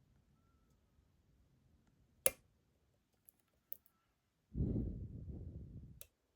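Lock picking in an ASSA Guideline lock: a sharp metallic click about two seconds in, a few faint ticks, and another click near the end. A low rumble of handling noise lasts about a second and a half past the middle.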